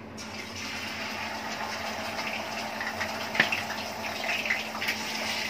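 Chital fish pieces coated in salt and turmeric frying in hot mustard oil in a kadai: a steady sizzling hiss that swells as the first piece goes into the oil, with a few sharp crackles.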